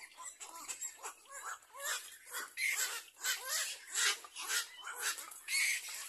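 Black-crowned night heron nestlings calling at the nest: a rapid run of short, rasping notes that gets louder about two seconds in.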